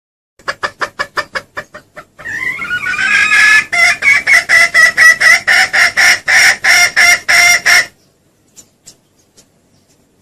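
Junglefowl lure call: a quick run of short clucks that fades away, then a loud, fast, evenly paced series of ringing clucks for about six seconds that stops suddenly. A call of the kind used to lure wild junglefowl.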